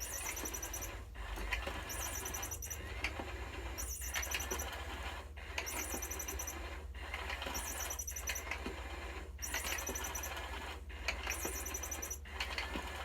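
Battery-powered motorized peekaboo cat toy running, its motor whirring with a short break about every second and a half. Its electronic tweeting sound chirps in brief high bursts at the same pace.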